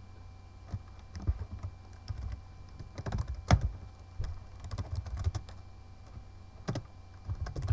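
Typing on a computer keyboard: irregular key clicks as shell commands are entered, with one louder key press about three and a half seconds in, over a low steady hum.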